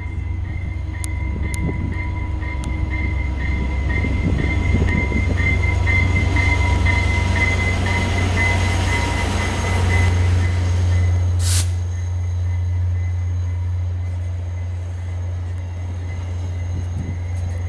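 VIA Rail F40PH-3D diesel locomotive drawing a passenger train in along a station platform: a steady low engine drone, with the rumble of wheels and cars swelling as it passes. A high pulsing ring fades out partway through, and a single sharp crack sounds near the middle.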